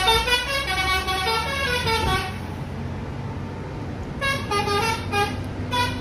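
Lorry's telolet musical air horn playing a quick tune of stepped notes, which stops about two seconds in. A few short horn notes follow near the end, over a low engine hum.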